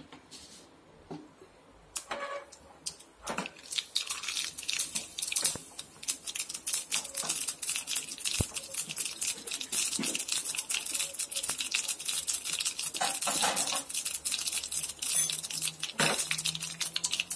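Mustard seeds and lentils frying in hot oil in a small steel pan for a tempering (tadka). It starts with a few scattered clicks, and from about two seconds in becomes a dense, steady crackle of sizzling and popping that keeps going.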